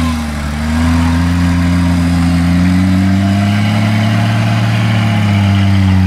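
Off-road 4x4's engine working under load while the vehicle crawls up a steep muddy bank. The revs sag briefly near the start, then climb slowly over a few seconds and hold.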